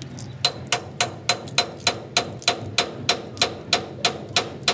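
Metal being struck with a hammer in a fast, even rhythm, about three or four blows a second, each with a short metallic ring, starting about half a second in.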